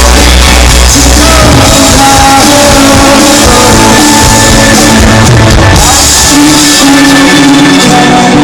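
Rock band playing live with lead vocals: drums, guitars and bass, loud and at a constant level throughout.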